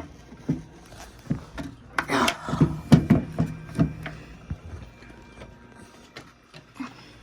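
Handling noise from a chime clock's case being moved about: a string of irregular knocks and taps, with a brief scrape about two seconds in.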